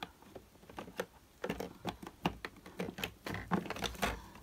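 Plastic alcohol markers being picked through by hand: an irregular run of light clicks and clacks, busiest in the second half.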